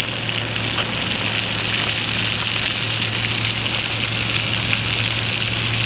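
Kelp greenling fillets frying in butter and blackberries in a pan on a camp stove: a steady sizzle.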